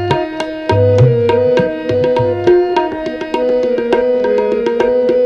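Shabad kirtan accompaniment between sung lines: harmonium playing a sustained melody over a steady tabla rhythm, with deep booming strokes on the bass drum early on and near the end.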